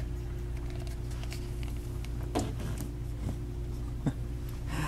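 Steady low hum of room tone with a few faint, soft taps and knocks as a large plastic dinosaur action figure is handled and set down on a blanket.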